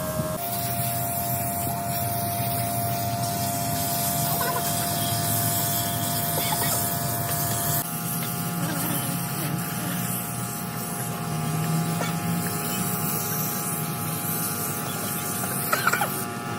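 Steady hissing noise over a constant mechanical hum and whine, shifting abruptly about eight seconds in, with faint voices in the background.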